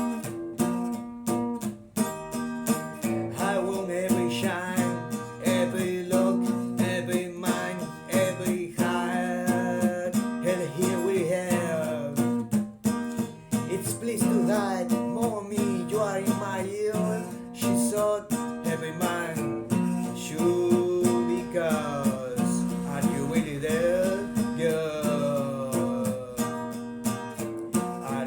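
A song's passage without words: acoustic guitar strumming over a steady accompaniment, with a wavering melody line on top.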